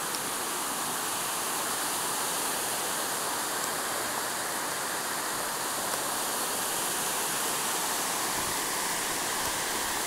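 Steady rushing of a small rainforest waterfall and the stream tumbling over rocks below it.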